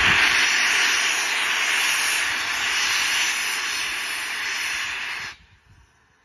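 Steam locomotive venting steam low down at its front end: a loud, steady hiss that cuts off suddenly about five seconds in.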